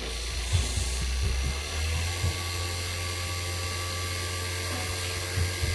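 NAVAC NP4DLM battery-powered 4 CFM vacuum pump running steadily, pulling a vacuum on a plastic bottle. Its hum rises in pitch about two seconds in as the pump speeds up, with a few faint knocks.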